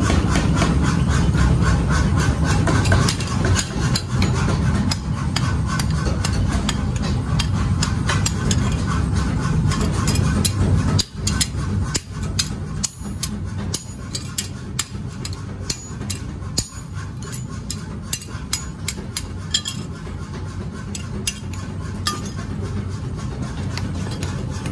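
Hammers striking leaf-spring steel on an anvil block: a long run of rapid, sharp metallic blows, including a sledgehammer driving a handled tool held on the blank. A steady low rumble runs under the blows and falls away about halfway through.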